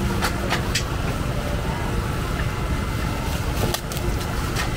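A steady low rumble with a few sharp clicks and clinks, a handful near the start and more near the end.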